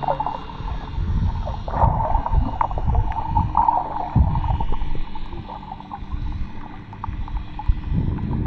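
Underwater sound picked up by a snorkeler's action camera in its housing: muffled, irregular surges of water movement, with scattered small clicks and crackles and a faint steady hum underneath.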